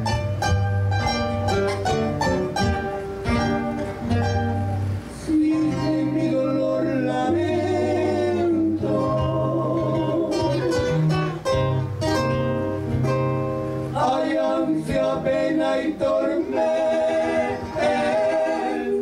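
Acoustic guitars playing an Arequipa carnival tune with a steady bass line. A man's voice singing over them comes in about five seconds in.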